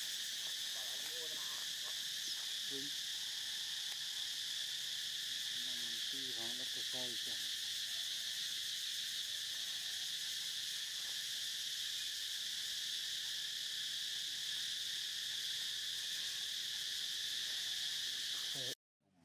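A steady, high-pitched chorus of insects droning continuously in the forest, cutting off abruptly near the end. A few faint short calls from some animal sound under it, the clearest a quick run of calls about six to seven seconds in.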